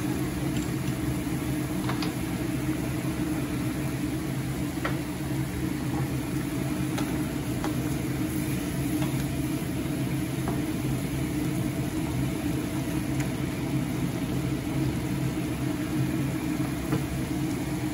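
A steady low mechanical hum, the loudest sound, over faint sizzling from chicken and tomatoes simmering in a stainless steel pan, with a few soft clicks.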